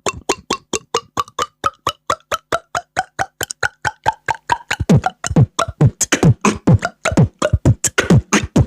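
Beatboxer's mouth-made water-drop sound effect: a fast run of short resonant plops, about five a second. From about halfway through they get louder and each drops sharply in pitch.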